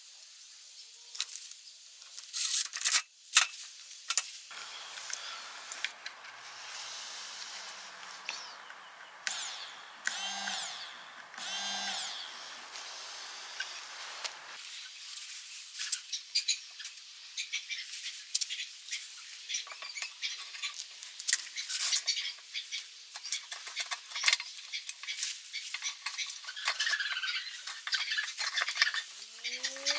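Metal tools and small parts clinking, tapping and rattling during hands-on work, with a hiss for several seconds and two short rising-and-falling whirs of a small motor near the middle.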